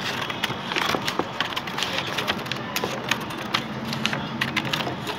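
Sheets of paper rustling and crinkling as a stack of folded paper is handled, with many quick crackles and clicks.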